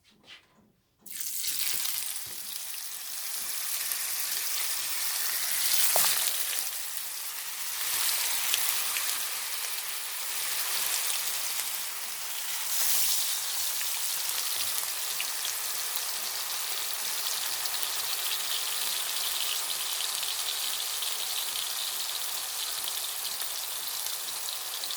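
Slices of bologna sizzling loudly in hot, smoking oil in a frying pan. The sizzle starts suddenly about a second in as the slices go into the pan, then runs on steadily, flaring up a few times.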